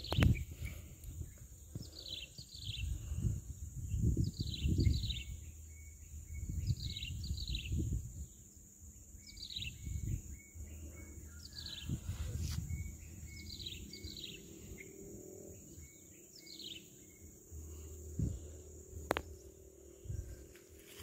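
A bird calling over and over: short pairs and triplets of quick falling chirps about every two seconds, over a steady high insect drone. Low rumbling bumps on the microphone, loudest near the start and about five seconds in.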